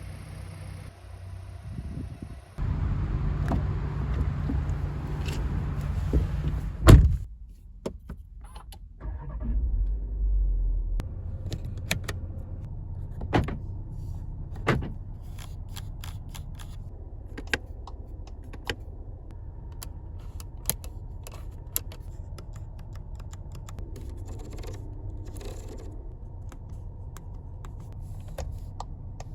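Car interior sounds from a 2023 Seat Ateca FR: a power window runs for about four seconds and stops with a heavy thump, followed by a brief low rumble and then a scattered series of sharp clicks from the cabin's switches and controls.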